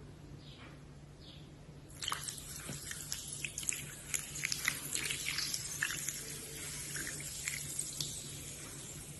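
Dry baked clay being bitten and chewed close to the microphone: a dense crackling crunch that starts about two seconds in and thins out towards the end.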